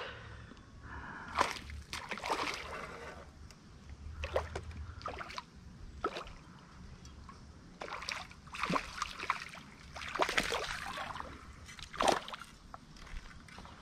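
Creek water splashing and sloshing in a handful of irregular, sharp splashes, in the shallows where a hooked fish is being played and landed.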